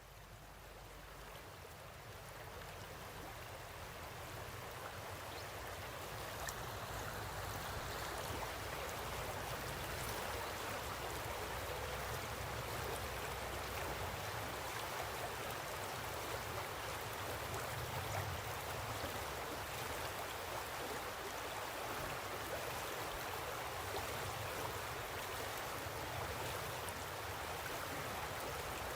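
River water flowing steadily, a constant rushing wash that fades in over the first few seconds.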